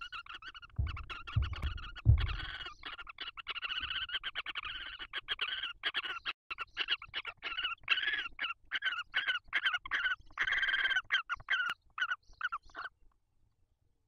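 Barn owls at the nest giving a long, raspy, rapidly pulsing chatter that turns choppy and stops about 13 seconds in. A few dull low thumps sound between about one and two seconds in.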